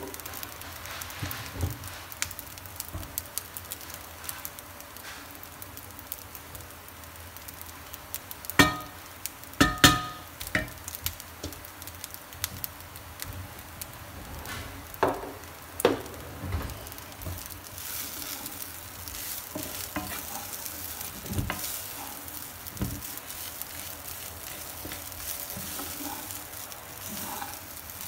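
Cooked rice sizzling as it is stir-fried in a nonstick frying pan, a wooden spatula turning and scraping it. Scattered sharp knocks of the spatula against the pan stand out, the loudest a couple about a third of the way in, one of them ringing briefly.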